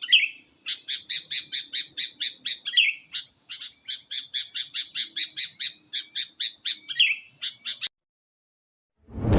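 Bird calls: a fast series of sharp chip notes, about four or five a second, over a steady high whistle, with a few down-slurred notes mixed in. They stop suddenly about eight seconds in. A loud rushing boom starts just at the end.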